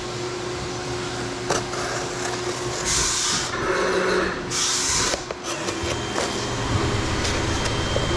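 Fanuc Robodrill CNC machine running with a steady mechanical hum, broken by two short loud hissing bursts about three and four and a half seconds in.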